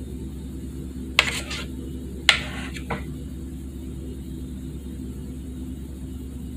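Two sharp clinks about a second apart, then a softer tap: a kitchen utensil knocking against dishes. A steady low hum runs underneath.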